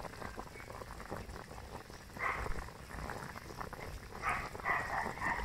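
Pork-and-vegetable soup bubbling at a full boil in a steel pot, a steady crackle of bursting bubbles. Two short, louder rough sounds come over it, about two seconds in and again near the end.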